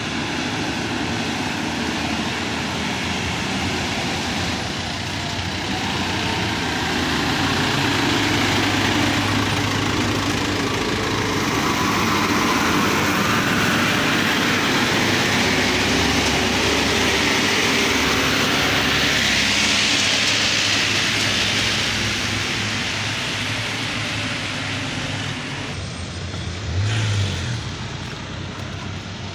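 Road traffic on a steep hill road: heavy lorries' engines running close by with tyre and road noise, growing louder through the middle and easing off later. A short, louder low engine surge comes near the end.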